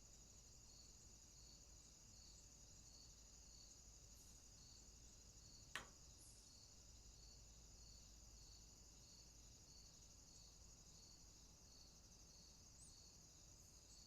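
Faint outdoor ambience of an insect chorus, a steady high-pitched trilling with a soft pulse about twice a second. A single sharp click sounds a little before halfway.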